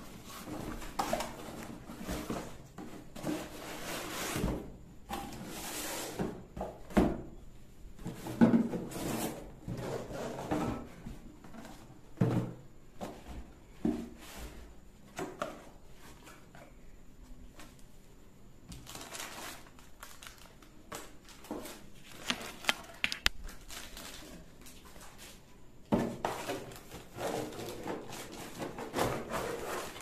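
Cardboard packaging being handled: box flaps and cardboard inserts rubbing, scraping and knocking in an irregular series of clicks and rustles, with plastic wrapping crinkling near the end.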